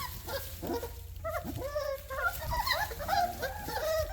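A litter of young puppies whimpering and yipping, many short high cries overlapping one another.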